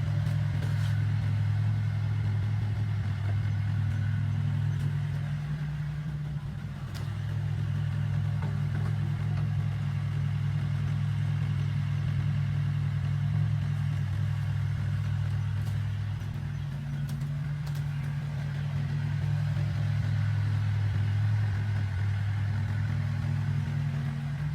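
Diesel engine of heavy earthmoving machinery running steadily at an even speed, easing off slightly about six seconds in, with a few faint clanks over it.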